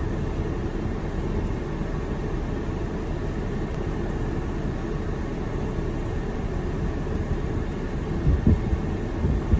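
2017 Ford Explorer's climate blower fan running steadily inside the cabin with the ignition on, a low rumbling rush of air. A few dull thumps come near the end.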